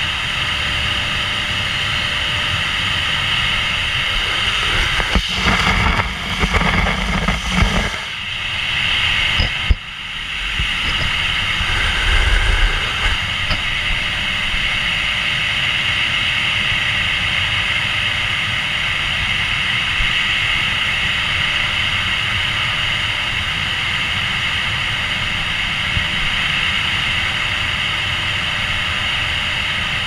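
Dyson vacuum cleaner running loud and steady, heard up close from a camera mounted on the machine, with a strong hissing whine. A few seconds in, the sound turns uneven for several seconds with knocks and one sharp knock followed by a brief dip, then it settles back to a steady drone.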